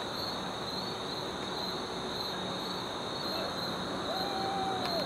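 Night crickets chirping steadily in a high, unbroken band, with a faint drawn-out call about four seconds in.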